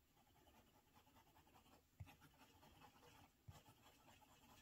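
Kaweco AL Sport fountain pen with a medium nib writing on a Rhodia grid notepad: a faint scratching of nib on paper as it writes loops and scribbles, with two soft taps about two and three and a half seconds in.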